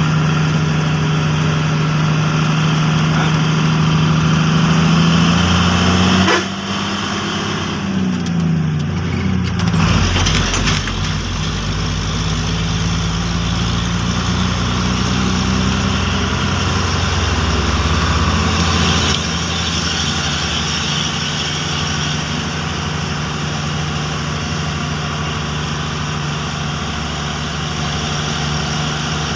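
Truck engine heard from inside the cab while driving. Its pitch climbs steadily for about six seconds, drops suddenly, wavers for a few seconds, then settles to a steady run.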